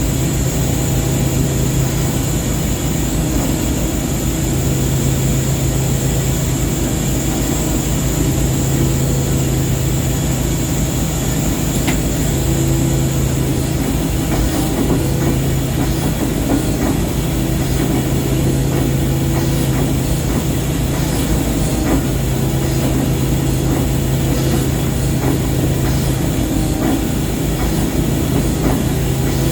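Ship's engine running steadily: a loud, constant low hum and rumble.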